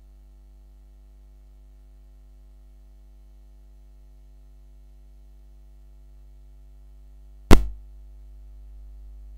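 Faint steady electrical mains hum, interrupted about three quarters of the way through by one sharp, loud knock that dies away into a short low rumble.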